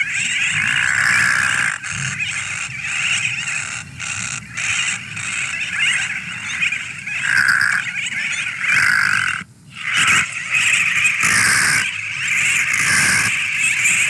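Recorded brown noddy calls played back through an outdoor horn loudspeaker from a Murremaid Music Box sound system. This is seabird social-attraction playback meant to lure noddies to a decoy colony. The calls repeat one after another, with a short break about nine and a half seconds in.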